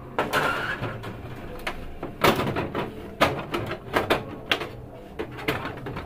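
Plastic cover panel of a Canon iR2520-series copier being worked loose and lifted off: a run of irregular plastic knocks and clatters.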